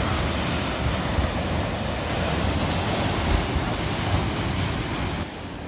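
Sea waves surging and breaking into a narrow rock gully below the cliff, a loud churning wash of surf with wind buffeting the microphone. The wash drops off sharply near the end.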